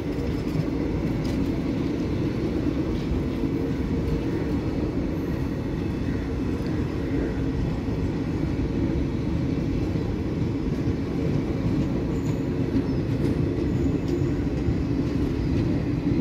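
Steady rumble of Indian Railways passenger coaches rolling past on the rails, the noise of wheels on track.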